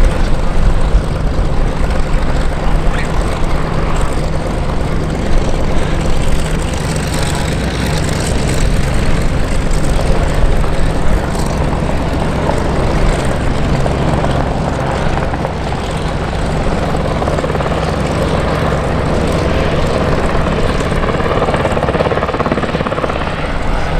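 Westland Sea King search-and-rescue helicopter flying a low display pass, its main rotor beating steadily over the engine noise.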